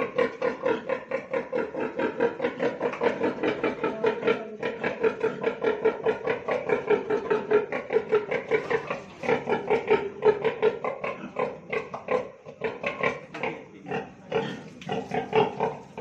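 A sow grunting in a rapid, steady string of short grunts, about five a second, with a couple of brief pauses.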